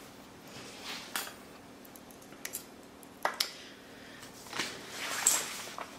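Scattered light clicks and clinks of small hard medical instruments being handled and set down, with a short rustle about five seconds in, over a faint steady hum.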